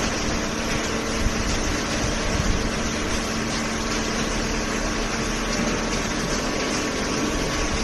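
A horizontal hydraulic cardboard baler and its feed conveyor running, giving a steady machine drone with a constant hum.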